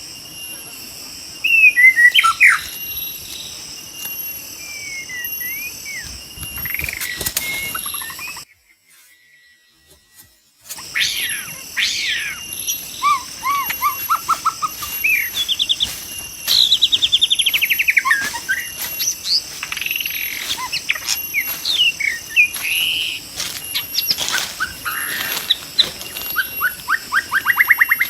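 White-rumped shama song: a run of varied whistled phrases, sweeping notes and rapid trills, over a steady high insect drone. The sound drops out for about two seconds about a third of the way through.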